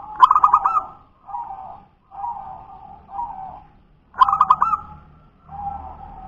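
Zebra dove (perkutut) singing its cooing song in two phrases. Each phrase opens with a quick, loud stuttering run of notes and is followed by several softer, separate coos.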